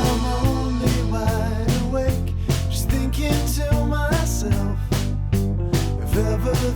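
Background music: a band track with guitar and a steady drum beat.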